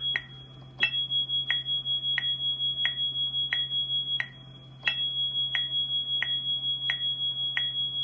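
A steady high-pitched electronic keyboard note is held for about three and a half seconds, cut off for a little over half a second, then held again, over the even clicks of a Boss DB-90 metronome, six clicks to each on-off cycle. The note is sounding a slowed-down smoke alarm 5/6 pattern: on for five sixths of each cycle, off for one.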